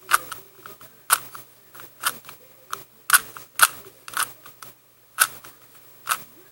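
Rubik's cube faces being turned by hand through a PLL algorithm: about a dozen sharp plastic clicks at uneven intervals, with a short pause a little past the middle.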